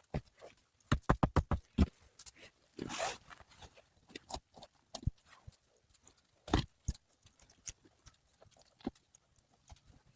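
A quick run of about seven sharp knocks, a brief scrape or rustle, then scattered clicks and one louder knock.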